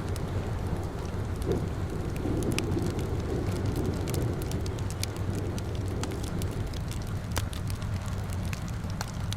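Fireplace fire crackling with irregular sharp pops over a steady low rumble, blended with the hiss of falling rain.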